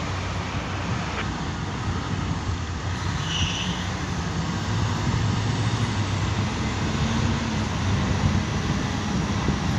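Heavy diesel engines of a mining excavator and an HD 465 haul truck running steadily, a continuous low drone. A short high-pitched tone sounds briefly about three seconds in.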